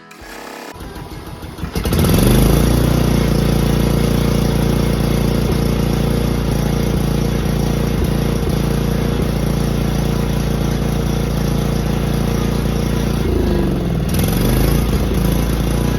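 Cub Cadet mower engine cranking for under two seconds, then catching and running steadily and loudly; about three seconds before the end its speed sags and picks back up. It starts on a new 20 amp fuse but runs just not right.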